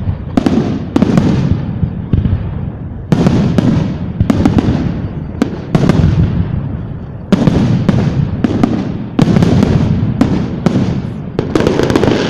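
Fireworks display shells exploding in quick succession, sharp bangs every half second or so, each trailing off in a rumbling echo, with crackling bursts among them.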